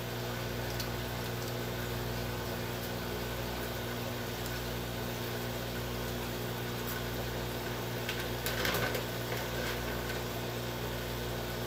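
Steady electric hum with a light hiss from running aquarium equipment, the filter motor at the tank. About eight and a half seconds in, a brief burst of clicks and rustling.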